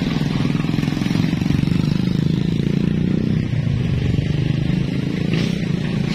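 Engine of an old Toyota "Buaya" tow truck running steadily close by: a low, even drone.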